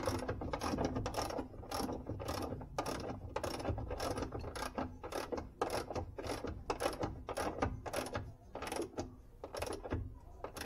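Ratchet wrench clicking in a steady rhythm, about two to three clicks a second, as a 14 mm nut on a Maruti 800's front suspension arm is run down tight.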